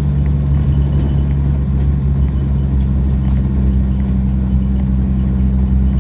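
1937 Dodge panel van's engine running steadily while the van drives along, heard from the cab as a loud, even, deep drone.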